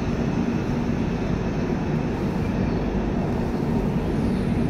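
Passenger express train's coaches rolling past along a station platform: a steady, even rumble of wheels on the rails.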